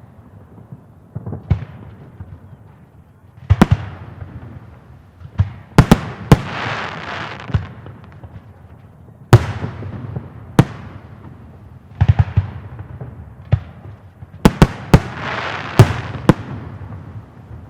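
Festive fireworks salute: shells bursting overhead in sharp bangs at irregular intervals, some in quick clusters, each followed by a fading crackle and rumbling echo.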